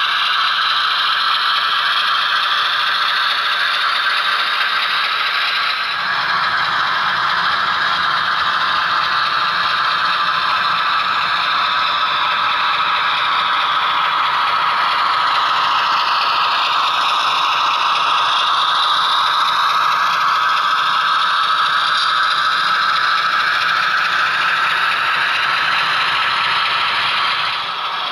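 HO-scale model train running on the track: a steady mechanical rattle and clatter of the wheels and the locomotive's motor and gears. The sound changes character about six seconds in, and a faint whine drifts in pitch through the middle.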